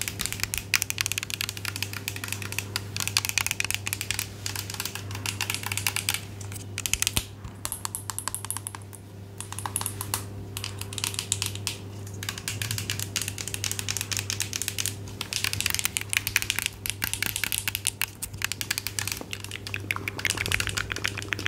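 Rapid, light tapping and clicking, many small strokes a second, in runs broken by short pauses, the longest a few seconds long about a third of the way in. A faint steady low hum runs underneath.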